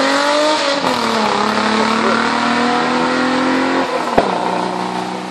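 Hillclimb race car engine revving hard as it accelerates away, the pitch climbing through the gears with an upshift about a second in. Near four seconds in the revs fall off with a single sharp crack, and the engine note settles lower.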